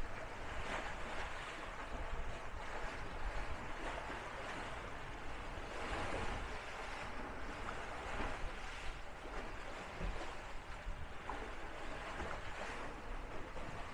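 Water rushing and splashing along the hulls of a sailing trimaran as it moves through light chop, a steady rush that swells every second or two, with wind buffeting the microphone.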